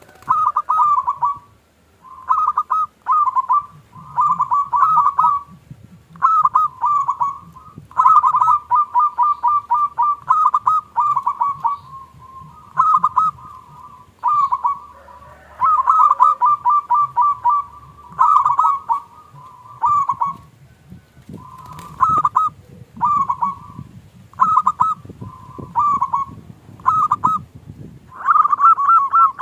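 Zebra doves (perkutut) singing: repeated short phrases of rapid, pulsed cooing notes, each about a second long, following one another with brief gaps. This is the dove's song, used as a lure call to set other perkutut singing.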